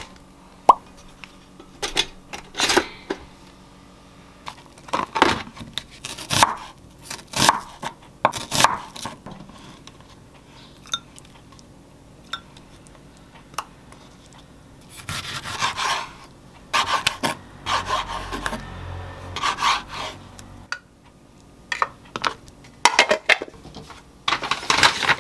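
Kitchen handling sounds: dishes, a glass cup and utensils clinking and being set down on a wooden cutting board and counter, a dozen or so sharp separate knocks spread through, with a few seconds of busier scraping and rustling about two-thirds of the way in.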